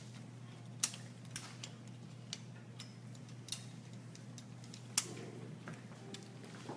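Light, irregular clicks and taps from a hot styling iron and comb being handled in hair, with the sharpest click about five seconds in, over a steady low electrical hum.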